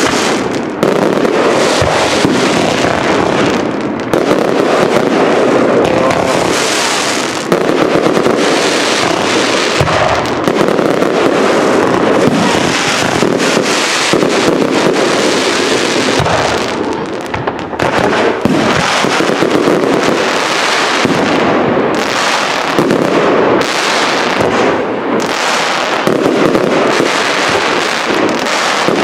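Fireworks display finale: a dense, continuous barrage of aerial shells bursting, with rapid overlapping bangs and crackling and only brief lulls.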